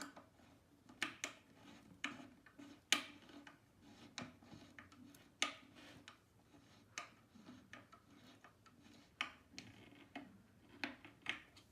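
Irregular small clicks and taps of a screw or cam fitting being tightened by hand into engineered-wood furniture panels during assembly, about a dozen sharp clicks spread out with quieter handling in between.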